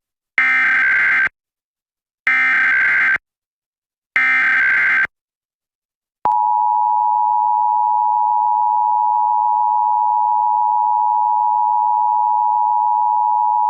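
Emergency Alert System alert: three short bursts of digital SAME header data, each about a second long with a second's gap between them, mark the start of an EAS message. After a moment of silence, the steady EAS two-tone attention signal (853 and 960 Hz together) begins about six seconds in.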